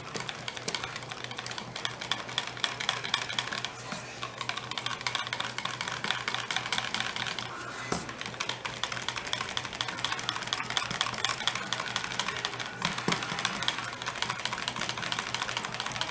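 Rapid, continuous light clicking and scraping of utensils against small containers, as colourant is worked into cold-process soap batter, over a steady low hum.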